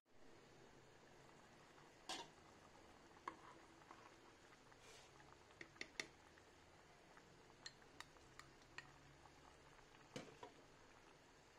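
Scattered light clinks and knocks of a lid and utensils against a saucepan as porridge is stirred, about a dozen sharp taps spread over the seconds, the loudest about two seconds in. A faint low hum lies beneath.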